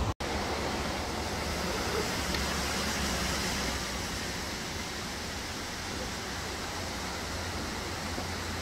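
Steady rushing roar of Multnomah Falls, the water falling and splashing without letup, with a brief break in the sound just after the start.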